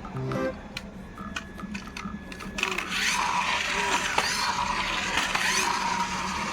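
A small motor whirring steadily, starting about two and a half seconds in after a few light clicks.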